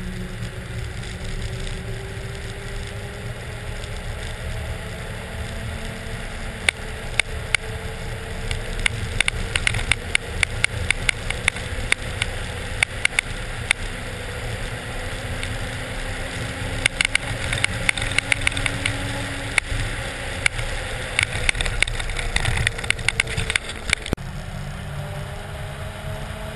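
Pickup truck on a Sno Trex rubber track system driving, heard from outside the truck's body: a steady low rumble with a drone that slowly rises and falls in pitch. Rapid sharp clicks and ticks run through the middle and stop about 24 seconds in.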